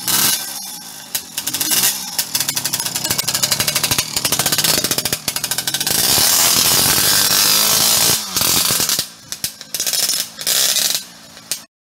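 Jawa 50 Pionýr's 50 cc single-cylinder two-stroke engine revving up and down as the moped is ridden, louder and steadier for a couple of seconds about halfway through, then fading in and out before cutting off suddenly near the end.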